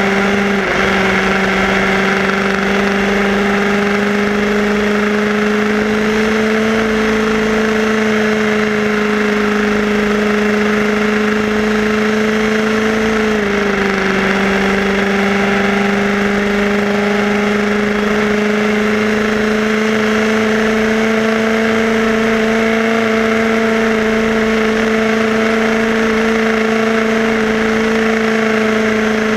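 HPI Baja 5B SS buggy's small petrol two-stroke engine running at a steady, held throttle, its pitch creeping up slightly and dipping once about halfway through. Heard up close from the buggy itself, with a constant rush of wind and tyre noise underneath.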